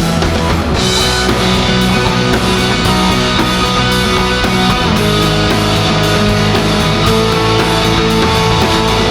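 A rock band playing an instrumental passage with no vocals: electric guitars holding sustained chords over bass and a drum kit keeping a steady beat.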